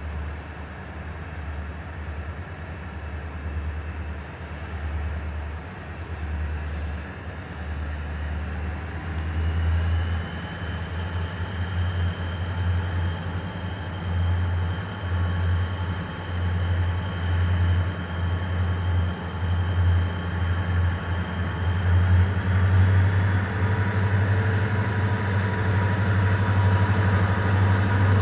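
Southern Pacific diesel locomotives approaching, their engines running with a pulsing low throb that grows louder as they near. A thin steady whine comes in about ten seconds in.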